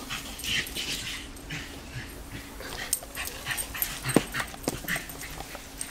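A dog making short excited sounds as it bites at the spray from a garden hose, with the water spattering. There is a run of short hisses and clicks, the sharpest click a little past the middle.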